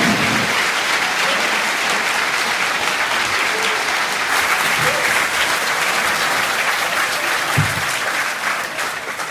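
Audience applauding: steady, dense clapping from a large crowd, easing off near the end.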